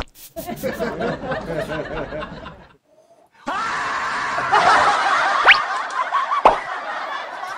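Snickering laughter, breaking off briefly about three seconds in, then a longer, louder stretch of laughter with a short rising whistle-like glide in the middle.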